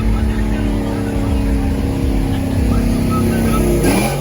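Car engine running with a steady, deep rumble, then revved briefly near the end, its pitch sweeping up.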